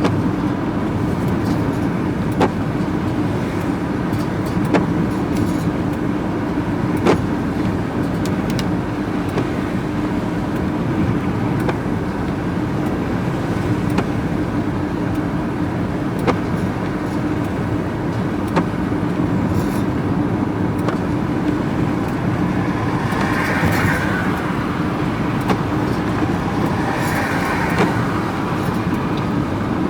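Steady engine drone and road noise from a vehicle being driven, heard from inside the cab, with a few light clicks or rattles now and then.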